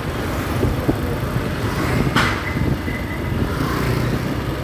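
Motorcycle engine running on the move along a city street, with road and wind noise. A short sharp sound about two seconds in, followed briefly by a faint high tone.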